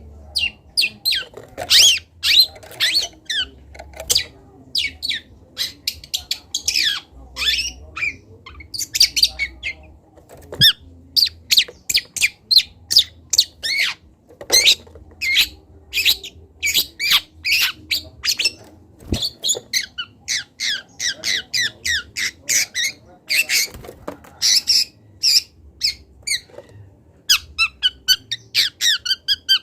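Young long-tailed shrike (cendet) singing a rapid, unbroken string of short chirps, squawks and chattering notes.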